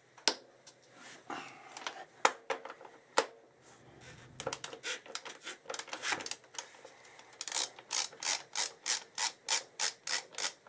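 A socket ratchet is worked in short strokes, loosening the final-drive filler cap. Its pawl clicks in regular bursts, about three a second in the second half, after a few separate knocks of tools on metal.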